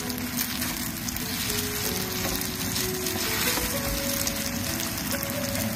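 Marinated chicken pieces sizzling loudly in hot oil in a pan as they are stir-fried with garlic.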